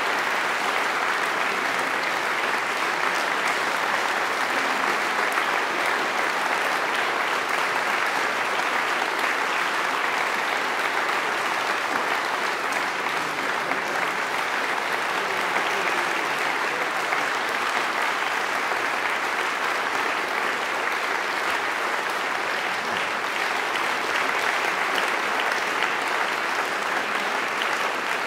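Audience applauding steadily, many hands clapping at once in a continuous wash of claps.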